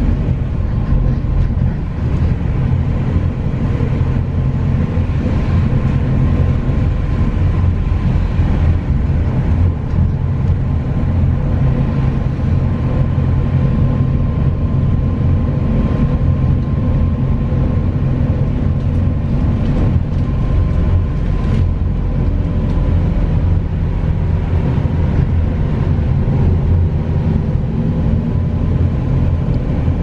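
MAZ-206.945 city bus on the move, heard from inside the passenger cabin: a steady low engine and drivetrain rumble with a faint steady whine above it.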